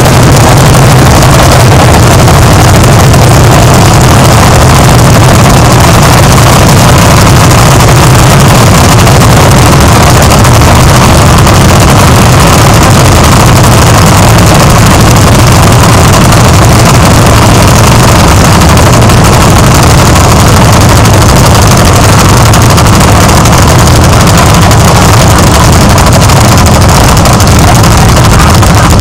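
Several vintage hot-bulb tractors with single-cylinder engines running steadily as they haul loaded trailers past. The sound is very loud and continuous, near the top of the recording's range.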